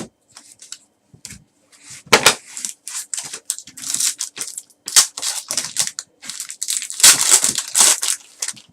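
A trading card pack wrapper being crinkled and torn open by hand, in an irregular run of crackles that is loudest near the end.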